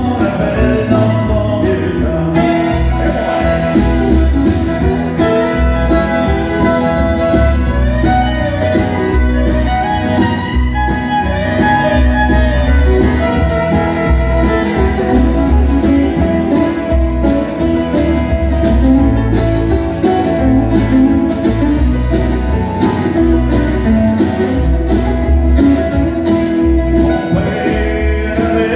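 Live acoustic country band playing: strummed acoustic guitars and a fiddle, with a man singing lead into the microphone.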